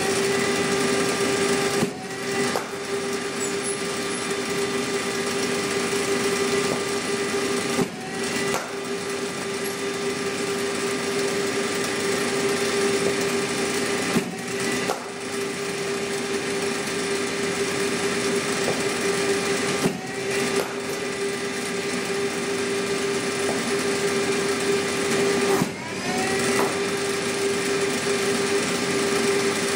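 Bowling machine's spinning wheels running with a steady hum. About every six seconds a ball is fired: the hum dips with a knock, a second knock follows a little over half a second later as the ball reaches the bat, and the wheels whine back up to speed. There are five deliveries.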